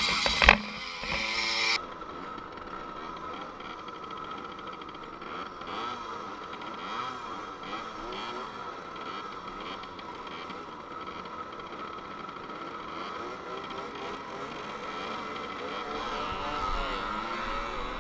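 Small two-stroke moped engine running steadily at low revs, then rising in pitch near the end as it pulls away. It opens with a louder, hissier stretch that cuts off abruptly about two seconds in.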